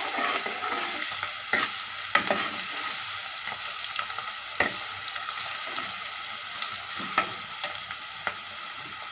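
Chopped onions, garlic paste and whole dried red chillies sizzling in hot oil in a metal kadhai, with a steady frying hiss, while a metal spoon stirs them and clinks sharply against the pan a few times.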